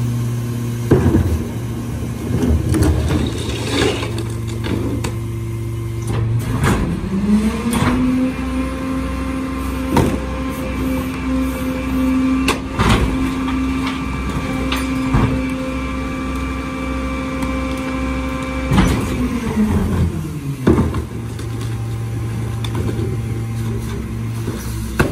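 Mack LR garbage truck's diesel engine idling, then about seven seconds in speeding up and holding a high idle for around twelve seconds before dropping back to idle, typical of the throttle advance while the Leach Alpha III rear loader's hydraulic packer cycles. Scattered clanks and bangs of plastic carts being tipped and emptied into the hopper.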